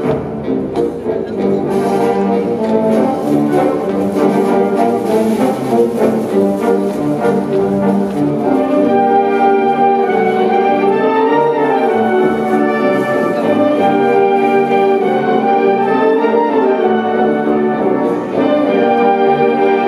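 Large wind band playing a concert piece, with brass prominent over sustained chords. The brighter top of the sound thins out about nine seconds in.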